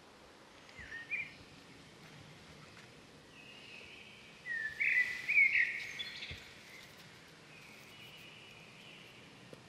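Bird calls over a steady outdoor background hiss: a short chirp about a second in, then a louder run of gliding, chirping whistles around the middle.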